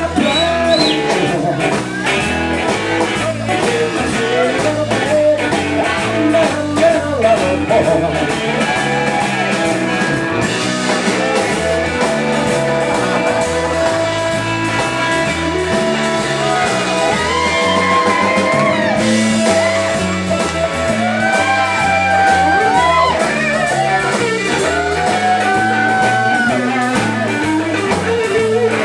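Live blues-rock band playing a Texas shuffle on electric guitar, electric bass and drum kit. From about halfway through, the lead line holds long notes that bend up and down in pitch.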